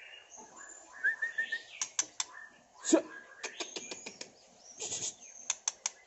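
White-rumped shama singing in a cage: scattered short whistled notes and a quick trill among many sharp clicks, with a louder thud about three seconds in.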